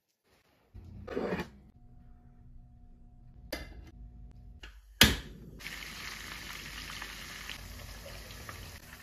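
Breaded king prawns deep-frying in hot oil, a steady sizzle that sets in about five and a half seconds in, just after a sharp knock. Before it, a low hum with a couple of brief handling noises.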